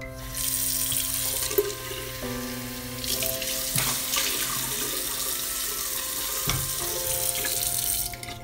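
Bathroom sink faucet running water into the basin, turned on just after the start and shut off near the end.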